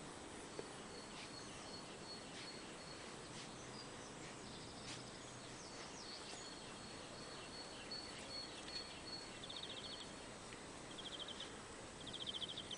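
Outdoor insect chorus: a steady high-pitched trill that stops about ten seconds in, with short buzzing chirps repeating three or four times near the end, over a faint hiss and a few faint ticks.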